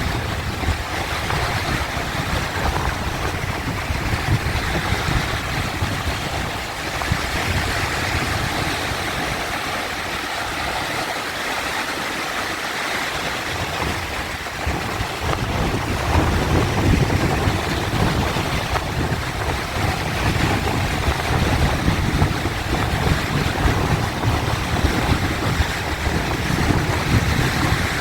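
Sea waves washing and breaking, a steady rush of surf with a deep low rumble that thins out about a third of the way in and comes back stronger just past halfway.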